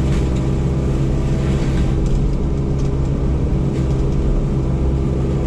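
Yanmar SV100 excavator running with its diesel engine and hydraulics at a steady, unchanging pitch.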